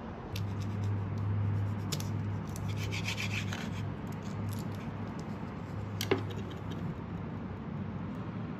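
Plastic tube of tofu rubbing and crinkling against a wooden chopping board as hands handle it, with scattered small clicks and one sharp tap about six seconds in, over a low steady hum.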